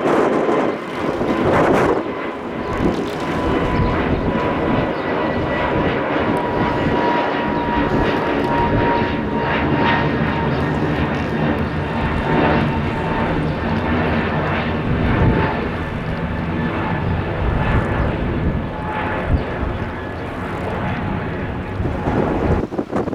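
Airbus A320neo's CFM LEAP-1A turbofan engines running in flight, a steady jet roar with a whine that slowly falls in pitch.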